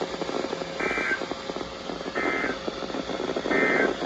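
Three short warbling two-tone data bursts, about a second and a half apart, over crackling radio static from a weather radio: the SAME digital End of Message code that closes an Emergency Alert System warning.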